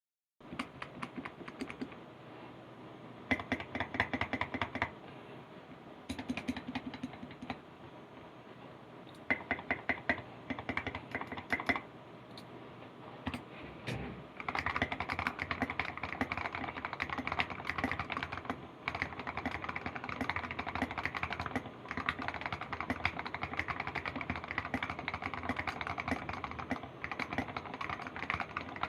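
Typing on an Anne Pro mechanical keyboard fitted with Filco double-shot keycaps. Short runs of keystrokes in the first half give way to steady, fast typing from about halfway on.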